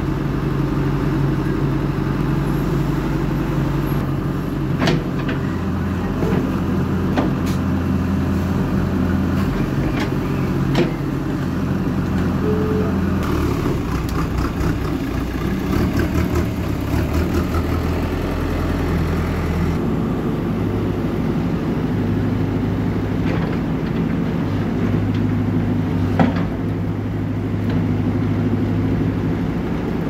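Backhoe loader's diesel engine running under load, its pitch shifting as the revs change about halfway through and again a little later. There are a few sharp knocks and cracks scattered through as the machine pushes against a tree.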